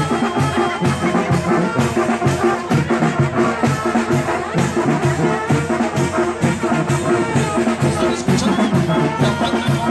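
Mexican brass banda playing a lively chinelo dance tune: trumpets over a sousaphone bass line, with a steady drum beat.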